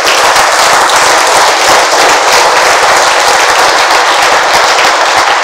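Audience applauding, a loud, steady stretch of dense clapping.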